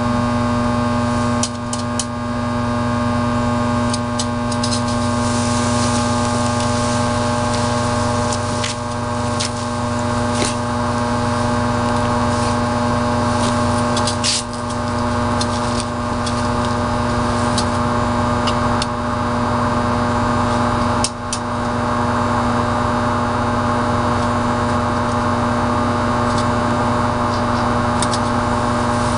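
Steady electrical hum of power-substation equipment: a deep, loud buzz with a stack of steady overtones, broken now and then by sharp crackles.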